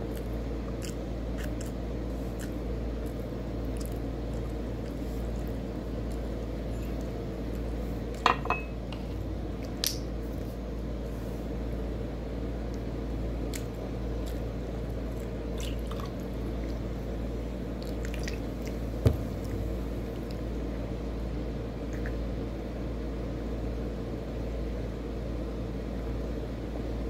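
Eating and drinking sounds over a steady low hum: soft squishing of food eaten by hand, and a few sharp clicks and knocks from a plastic soda bottle and a drinking glass being handled, the loudest about eight seconds in and again near nineteen seconds.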